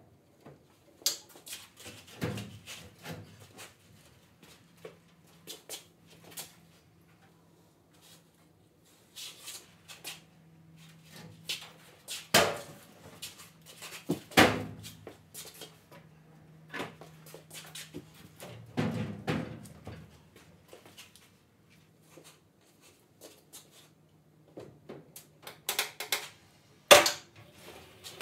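Scattered knocks, clicks and clunks from a manual scissor lift table and the 2x4 wood pallet on it being worked and moved, with a few louder thunks spread through and a clatter near the end as the table is pulled out. A faint steady hum runs underneath.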